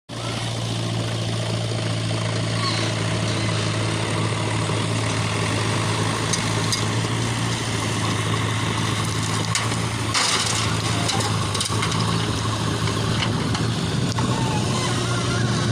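Diesel engine of a JCB backhoe loader running steadily with an even low hum, and a short burst of noise about ten seconds in.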